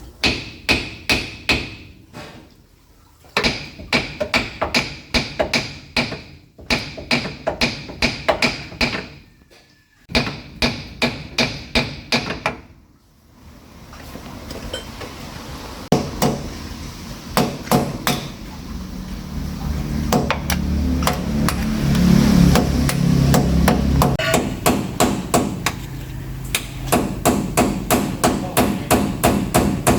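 Hammer blows on metal in quick runs of several strikes a second, with brief pauses between runs; the early blows ring. In the second half the strikes come faster over a low rumble that swells and then drops away a few seconds before the end.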